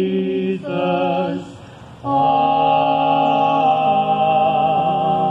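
Sung benediction: a voice sings the word 'Jesus', breaks off briefly about a second and a half in, then a long chord is held to the end.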